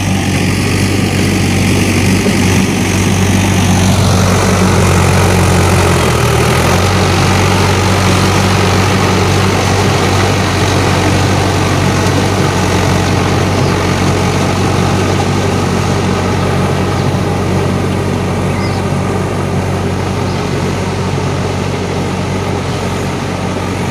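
Swaraj tractor's diesel engine running steadily as the tractor puddles a flooded paddy field on cage wheels, with a brief dip in the engine note about six seconds in.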